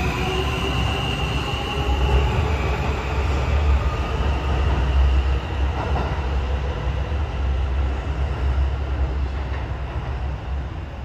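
R160 New York City subway train pulling out: the traction motors' whine rises in pitch as it picks up speed, over a heavy rumble of wheels on rail with a high steady tone in the first few seconds. The rumble fades near the end.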